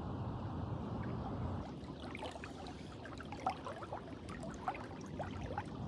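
Water gurgling and trickling against a moving canoe's hull, a scatter of small splashes, over a low steady hum that eases off about two seconds in.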